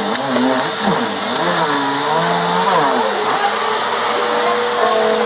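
Vacuum cleaner running steadily: a continuous rushing drone with a constant whine, with wavering tones rising and falling over it.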